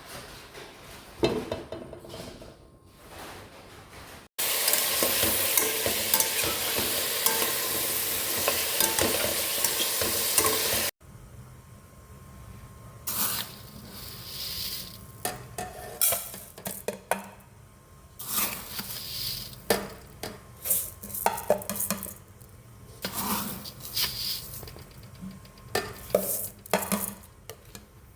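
Food frying in a pan for a chicken curry, with a spoon stirring and clinking against the pan. A loud, even sizzle starts about four seconds in and cuts off suddenly near eleven seconds. Irregular stirring scrapes and clinks follow.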